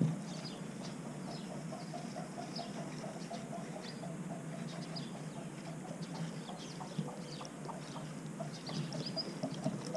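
Water glugging out of an upturned plastic bottle in short, regular gulps and running onto a van roof, poured along a freshly siliconed window seam as a leak test. Birds chirp in the background.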